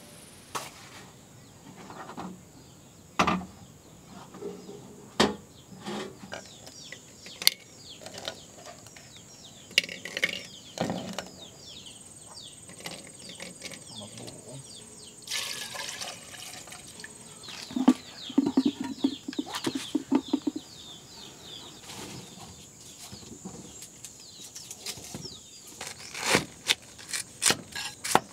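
Birds chirping with scattered knocks and clicks of handling, then a cleaver chopping cabbage on a wooden stump block near the end, in quick regular strokes.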